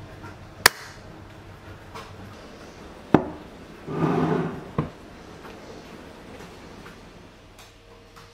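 Kitchenware being handled: a sharp knock under a second in, another a little past the middle of the first half, then a brief scraping rustle and a last knock.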